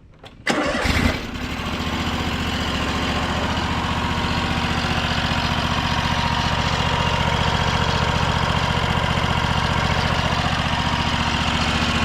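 Kubota ZG227 zero-turn mower's two-cylinder Kubota GZ770 petrol engine cranking and catching about half a second in, then idling steadily. The engine smokes badly and one cylinder shows heavy blow-by, which the owner puts down to worn piston rings, a worn cylinder, or both.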